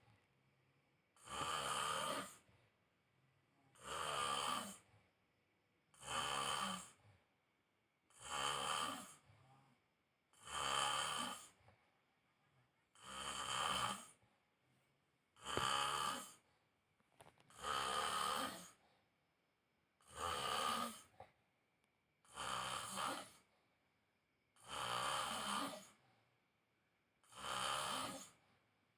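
A man snoring in his sleep, one snore about every two and a half seconds, each about a second long, in a steady, regular rhythm.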